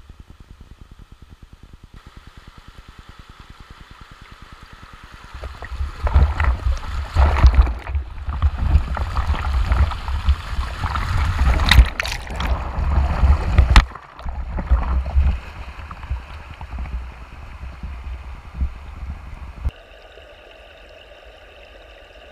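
River water rushing and splashing hard around a camera held at the surface in a rocky riffle, loud and rough with a deep rumble from about six seconds in until about fourteen, then calmer. Near the end the sound turns suddenly quieter and dull as the microphone goes under the water.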